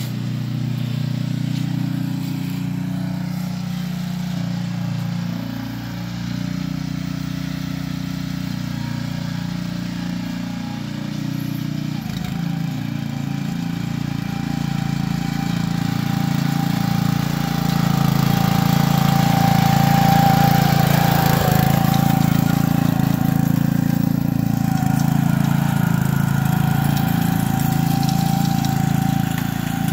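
Billy Goat core aerator's small gasoline engine running steadily as the machine is pushed across the lawn, growing louder as it comes closer about two-thirds of the way through.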